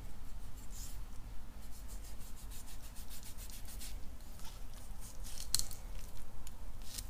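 Kitchen knife cutting and scraping at a plucked chicken's tail to cut out the oil (preen) gland: a quick run of short scratchy strokes, with sharper scrapes about five and a half seconds in and near the end as the carcass is handled on the plastic board.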